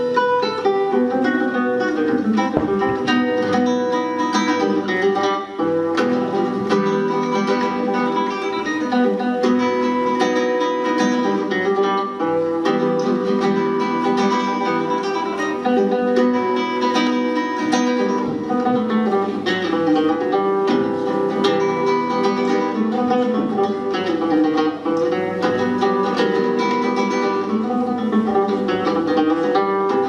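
Acoustic guitar played live, a continuous stream of quick plucked notes and chords, accompanied by a def frame drum.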